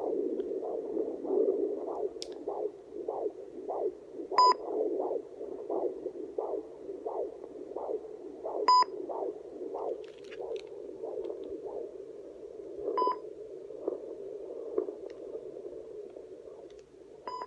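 Fetal heartbeat through a handheld fetal Doppler's speaker: a rhythmic whooshing pulse about twice a second over a steady hiss. A short beep sounds about every four seconds.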